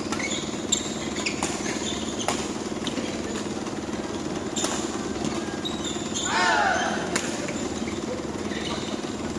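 Badminton rally: sharp racket-on-shuttlecock hits every second or so over a steady low hum. A brief wavering squeal about six and a half seconds in.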